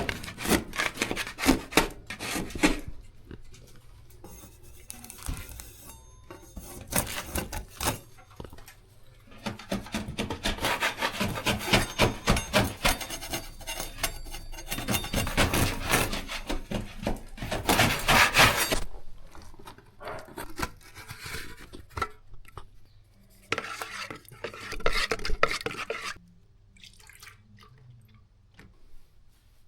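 Metal hand tools scraping and clinking in irregular bursts, typical of drywall repair work with a knife or scraper. There are quieter gaps between the bursts, and it goes almost quiet near the end.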